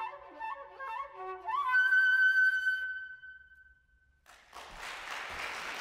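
Unaccompanied concert flute playing a short rising run into a long, high held final note that fades away. About a second after it dies, an audience breaks into applause.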